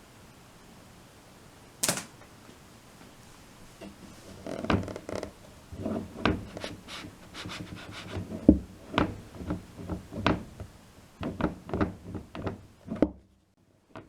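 Parts of a clothes dryer being handled during repair work: a sharp click about two seconds in, then a run of irregular knocks, clunks and rubbing that cuts off suddenly shortly before the end.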